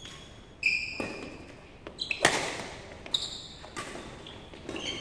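A badminton rally: rackets striking the shuttlecock in sharp pops, the loudest about two seconds in, and sneakers squeaking briefly on the court floor several times.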